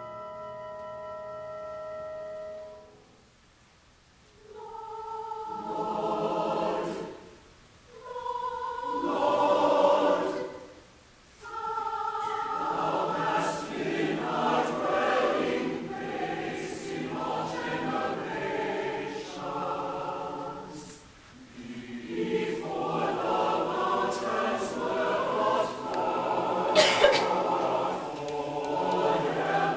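Large mixed choir singing with orchestra in a classical choral work. A held chord fades away in the first few seconds, then the choir sings in phrases with short pauses between them, becoming continuous and fuller in the last third, with one sharp click near the end.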